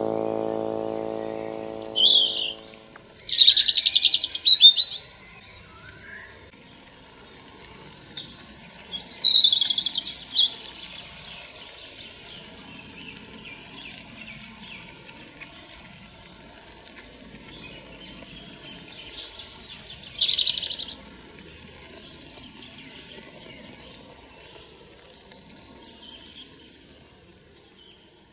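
European robin singing: three short, high, varied song phrases with long pauses between them. Held background music notes fade out in the first two seconds or so.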